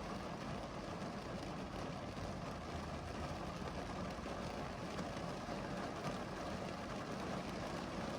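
Steady rain falling, an even wash of noise with no single drops standing out.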